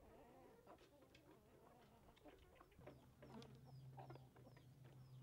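Faint domestic hens clucking softly while feeding, with scattered small clicks of beaks pecking at a feeder tray. A low steady hum comes in about halfway through, and small high chirps start soon after.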